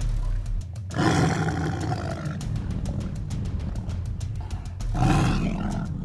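Tiger roaring twice over background music: a long roar about a second in and a shorter one near the end.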